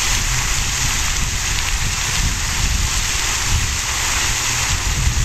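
Wind buffeting the camera microphone: a steady, uneven low rumble under a broad hiss.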